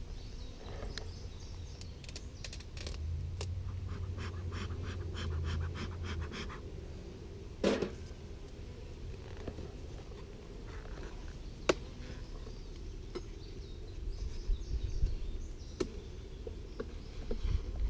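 Hive tool prying apart the wooden boxes of a beehive: a run of small crackles as the propolis-sealed seam gives, then one sharp crack about a third of the way in. Single clicks and knocks follow as the top box is lifted off.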